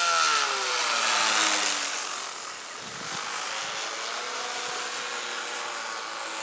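Radio-controlled model Cessna 182's motor and propeller buzzing in flight. Its pitch drops steeply over the first two seconds, while it is loudest, then it settles into a steadier, quieter drone.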